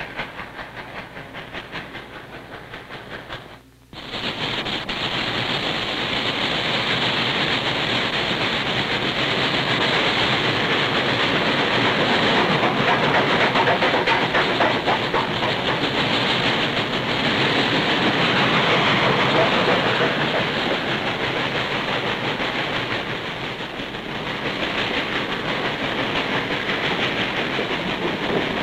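Norfolk & Western steam locomotive hauling a freight train passes close by, its exhaust and running gear followed by a long string of hopper cars rolling past with wheels clattering on the rails. The sound is quieter for the first few seconds, then cuts abruptly to a much louder close pass.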